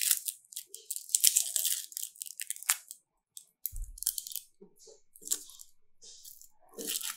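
Dry, papery onion skin crackling and tearing in many short bursts as it is pulled and pared off the bulb with a knife. There is a single dull thump about four seconds in.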